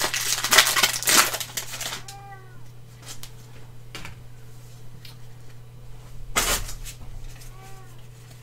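Foil booster-pack wrapper crinkling as it is torn open and the cards pulled out, with another crinkle about six and a half seconds in. A cat meows faintly twice, about two seconds in and again near the end.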